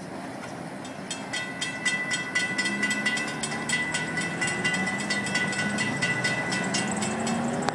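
Railroad grade-crossing bell ringing in steady strokes, about three a second, as the gates lift after a train has passed; it stops near the end. Underneath is the low running of waiting road traffic.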